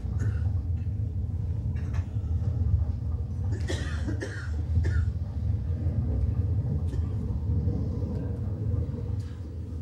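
A person coughing, in a burst about three and a half to five seconds in, over a steady low hum.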